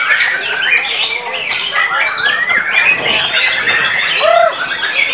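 White-rumped shama singing a dense run of whistles and trills, overlapping with other caged songbirds; a short, lower whistle about four seconds in.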